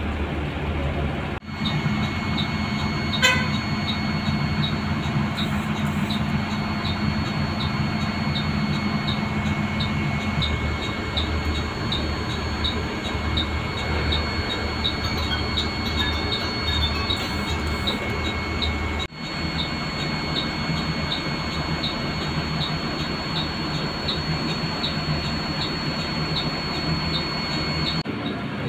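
Mercedes-Benz OF 1623 bus's front-mounted diesel engine idling, heard from the front seat inside the cabin. A steady ticking of about two ticks a second runs over it, and there is one sharp click about three seconds in.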